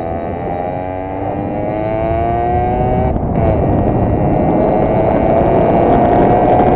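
Simson moped's single-cylinder two-stroke engine accelerating through the gears. Its pitch climbs, drops at an upshift about three seconds in, then climbs again, with wind noise building on the microphone.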